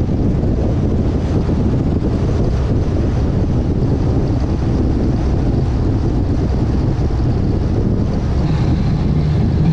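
Wind buffeting the microphone in a loud, steady low rumble, as from travelling at speed in the open.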